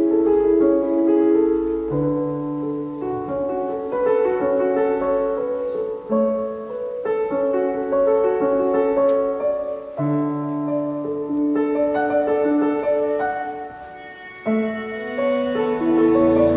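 Instrumental background music: a keyboard playing slow, sustained chords, with a deep bass note coming in every few seconds.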